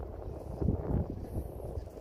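Wind buffeting the microphone: an uneven low rumble with irregular thumps.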